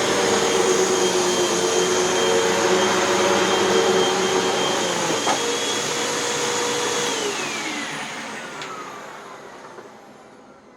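Hoover Windtunnel 2 upright vacuum running steadily with a motor whine, then switched off about seven seconds in, its motor spinning down with a falling whine as the sound fades.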